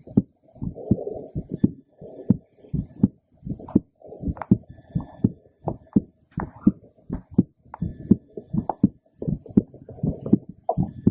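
A woman's heartbeat heard through a stethoscope: a steady lub-dub rhythm of paired thumps, a little faster than one beat a second.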